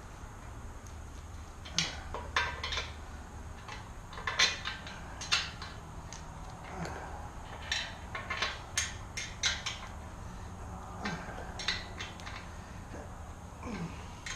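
Irregular metallic clinks and knocks of hand tools and bolts being handled while a dirt bike is worked on, with a low steady hum underneath.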